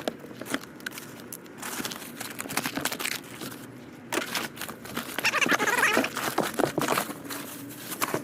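Clothes and paperwork rustling and crinkling as they are handled and sorted out of a storage bin, with scattered light knocks and clicks.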